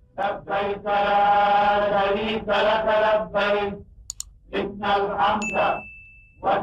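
A solo voice chanting a slow melodic religious line, drawn out into long held notes with short breaks between phrases. About four seconds in come a couple of sharp clicks, followed shortly by a brief high electronic tone.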